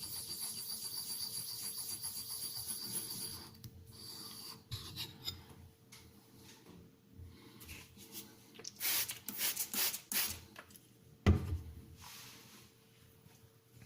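A steel knife blade is stroked across an abrasive sharpening surface to raise a burr. There is steady rubbing for the first few seconds, then it stops, followed by a handful of separate scraping strokes. A little past the middle comes a single sharp knock, the loudest sound.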